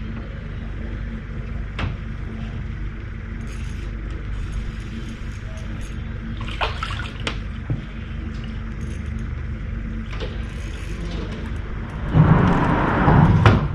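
Splashing water as a hooked crappie is swung up out of the lake on the line, the loudest sound, lasting about a second and a half near the end. Under it runs a steady low rumble, with a few sharp clicks earlier on.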